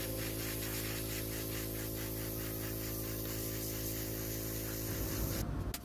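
Airbrush spraying paint: a steady hiss of air with a steady hum beneath it, cutting off shortly before the end.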